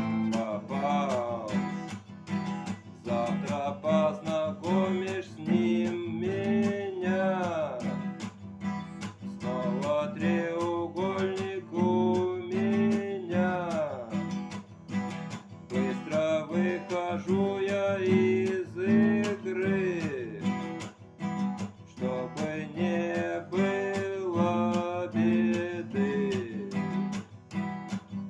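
Music: strummed acoustic guitar chords with a lead melody over them that slides and bends in pitch.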